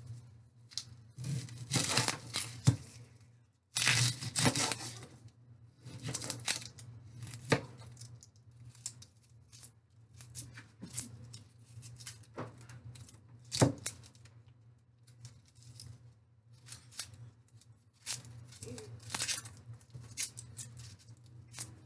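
Dry, papery onion skin being torn and peeled off a whole onion with a kitchen knife, crackling and rustling in irregular bursts. There are a few sharp knocks along the way, loudest at about seven and a half and about fourteen seconds in.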